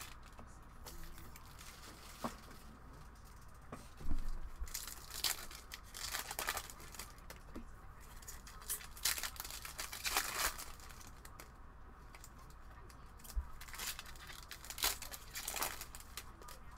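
Foil trading-card pack wrappers torn open and crinkled by hand, in short irregular rustles with quiet gaps between.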